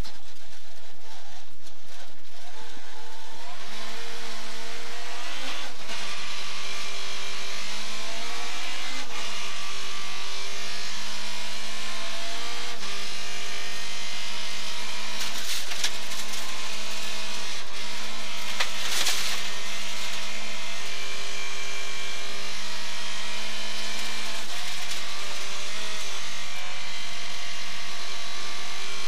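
Volvo 940 Group H rally car heard from inside the cabin at full speed on gravel. The engine climbs in pitch and drops back several times as it shifts up through the gears, over a steady loud din of tyres on loose gravel, with a few sharp rattles about halfway through.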